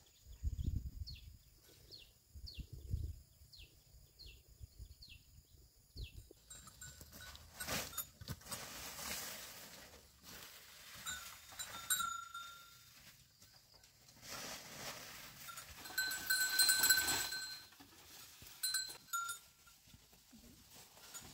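Goats bleating while leafy branches rustle as they are pushed into a wooden goat pen. Footsteps on dirt in the first few seconds, over a quick run of short falling chirps.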